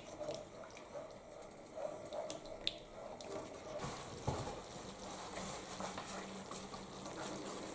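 Thick white sausage gravy simmering faintly in a skillet as it cooks down to thicken, with a couple of light clicks.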